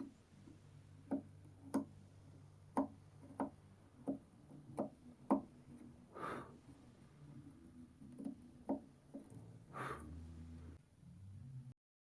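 About a dozen light, irregular taps and clicks, like small hand tools or parts knocking on wood, with two short scraping swishes about six and ten seconds in; the sound cuts off abruptly near the end.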